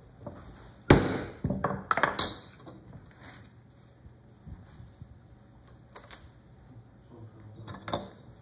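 Hand tools knocking and clattering on a wooden workbench while veneer is cut: a cluster of sharp knocks about a second in, one with a short metallic ring from a steel tool, then a few lighter taps near the end.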